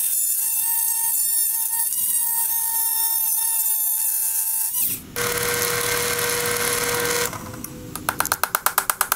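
Dremel Multi-Max oscillating multi-tool running with a steady high whine as its blade cuts a keyway into the steel motor shaft. It stops briefly about five seconds in, then runs again with a lower tone for about two seconds. A quick run of sharp clicks follows near the end.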